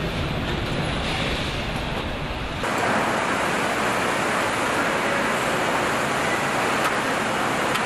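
Steady din of a car assembly line: a constant mix of machinery and air noise, which changes abruptly about a third of the way in from a low rumble to a brighter hiss.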